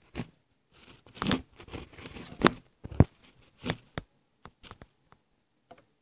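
Handling noise on a phone's microphone: hoodie fabric rustling against it, with irregular knocks and clicks as the phone is moved and set in place. The loudest knocks come about two and a half and three seconds in, then only a few light clicks.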